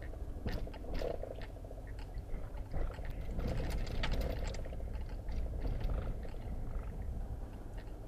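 Car tyres rolling slowly over a dirt track, loose gravel crackling and crunching over a steady low rumble.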